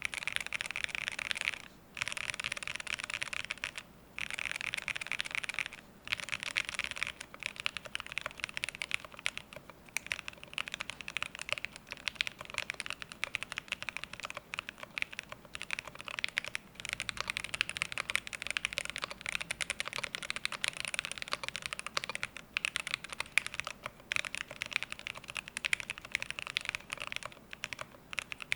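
Fast typing on a Cyberboard R2 mechanical keyboard with factory-lubed linear switches, an aluminium plate and clear keycaps: rapid key clacks in runs of a few seconds with brief pauses between them.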